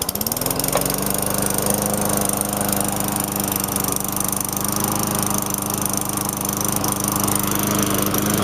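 A walk-behind lawn mower's freshly swapped-in small engine catches on the pull-start right at the beginning, its pitch rising quickly, then runs at a steady speed.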